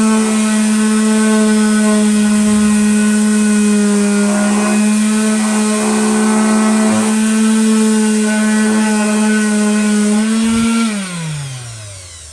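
Electric sander running at a steady pitch, then switched off about eleven seconds in, its whine falling as the motor spins down.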